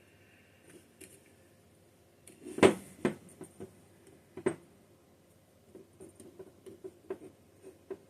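Small hand tool picking and scraping at a stuck gasket on a Holley carburetor's metal body: a few sharp clicks and knocks, the loudest about two and a half seconds in, then a run of light ticks.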